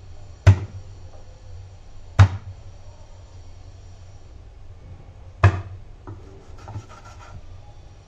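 A large curved blade chopping down onto a wooden cutting board through fish, three sharp chops a second or more apart, then a few lighter knocks and some scraping near the end.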